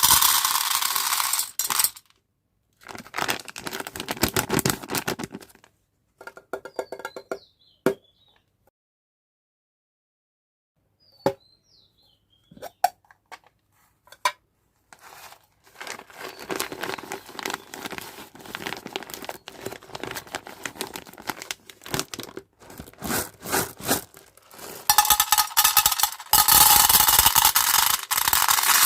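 Candy packaging being handled and opened: crinkling and tearing wrappers, with small hard candies clicking and clinking. It comes in bursts with silent gaps between, and the loudest crinkling is at the start and near the end.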